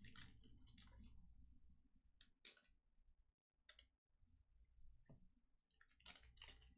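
Faint swishes and clicks of trading cards being handled, slid and shuffled against one another: a handful of short strokes scattered through, over a low steady room hum.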